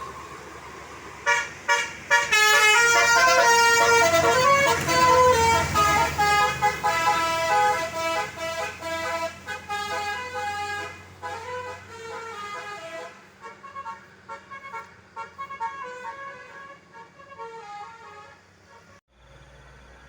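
Bus telolet horn of the Basuri type playing a quick melody of many changing tones over the bus's engine rumble. It is loud for the first several seconds, then fades and carries on more faintly until it cuts off near the end.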